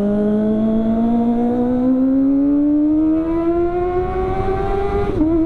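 Kawasaki ZX-25R's inline-four engine through a CLD aftermarket exhaust, pulling hard through a gear with its pitch rising smoothly, then dropping sharply at an upshift about five seconds in and holding steady.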